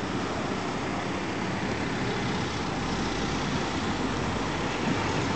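Steady rush of wind and road noise on the microphone of a camera riding on a moving bicycle.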